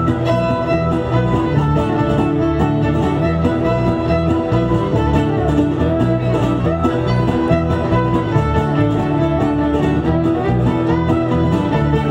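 Bluegrass string band playing, with fiddle and guitar.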